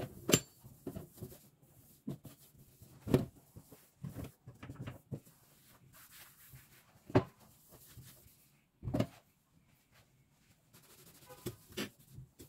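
Scattered knocks and clunks, about five louder ones spread through, with light rubbing in between, from cleaning a gas hob: a cloth wiping the stainless-steel top and the cast-iron pan support being set back in place.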